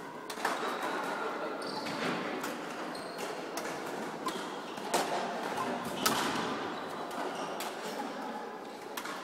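Large sports-hall ambience: scattered sharp knocks and thuds that echo in the hall, the loudest about five and six seconds in, over a steady murmur of background voices.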